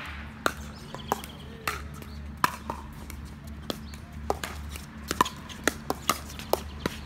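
Pickleball paddles hitting a plastic pickleball back and forth in a rally: a string of sharp hits about every half second, coming quicker in the second half.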